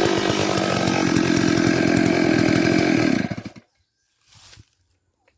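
Chainsaw running steadily at high revs, then cutting off fairly suddenly about three and a half seconds in.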